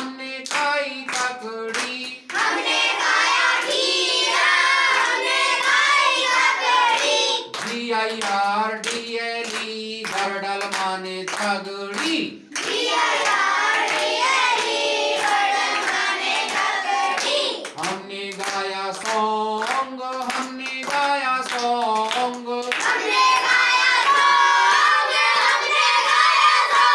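A call-and-response clapping chant: one adult man chants a line while clapping, and a group of children chants it back in chorus, clapping along. The turns alternate every five seconds or so.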